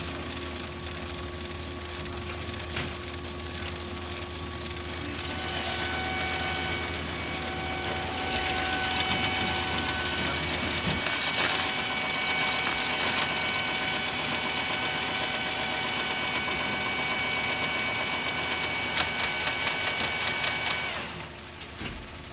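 Punched-card machine running: a rapid, dense clatter of cards feeding through with a steady whine over it. It starts about five seconds in and stops abruptly near the end, after a stretch of crackly old film-soundtrack hiss and hum.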